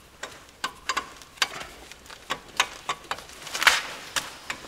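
Steel caliper retainer spring being pressed and levered onto a brake caliper by hand: irregular metallic clicks and taps, with a longer, louder scrape about three and a half seconds in.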